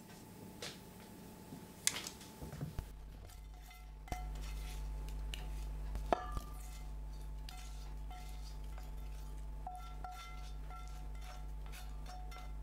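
Metal tongs clicking against a cast iron pan of roasted pepper strips. Then the pan is tipped and the peppers slide and scrape out of it into a glass measuring jug, with a sharp clink of pan against glass about six seconds in. A steady low hum starts about three seconds in.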